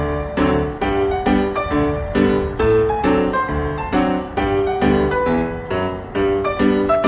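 Background piano music: a steady run of notes.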